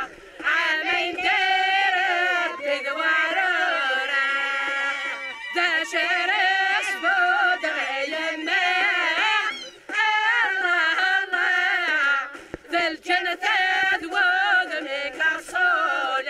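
A group of women singing a Kabyle folk song together, in long wavering phrases broken by short pauses for breath.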